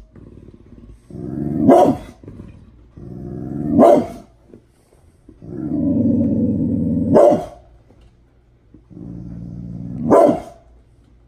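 Brindle pit bull growling low and rising into a single sharp bark, four times over. These are agitated warning growls and barks.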